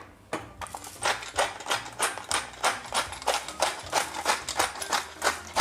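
Seasoning dispenser worked over raw chicken breast while it is salted and peppered, making a steady rhythm of about three sharp clicks a second that starts about a second in.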